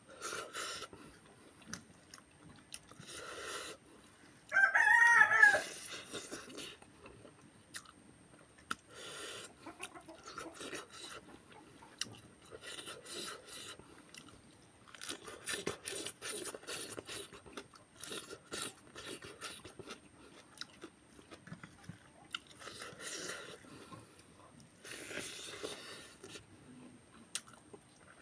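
Close-up chewing of food in repeated bouts, with some crunching. About five seconds in, a rooster crows once, briefly, the loudest sound here.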